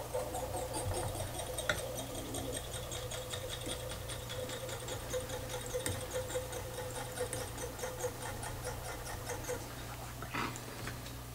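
Fly-tying thread being wrapped around a hook shank from a bobbin: a long run of faint, rapid ticking as the thread pays off the spool, with a faint steady hum underneath that stops together with the ticking near the end.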